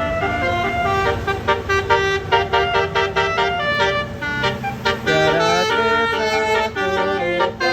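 Bus basuri telolet horn playing a tune: several held notes stepping from pitch to pitch, with a few sliding notes about five seconds in.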